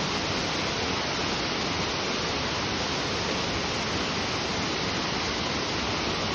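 Rushing water of a waterfall, a steady even rush.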